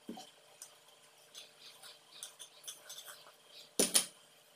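Clay pot of cooked white rice being tipped out onto a banana leaf: soft scraping and clicking as the rice slides out, then one loud clatter about four seconds in as the clay pot is set down.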